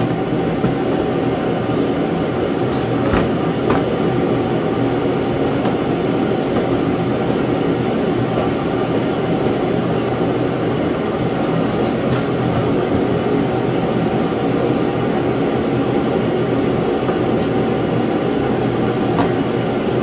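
Portable tank-fed shop heater running with a steady, loud noise, with a few faint clicks of plastic ATV fenders being handled over it.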